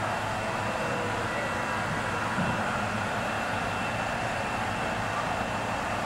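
Viscose Company No. 6, an 0-4-0 steam tank locomotive, rolling slowly across a steel girder bridge with a coach: a steady rumble with no distinct exhaust beats.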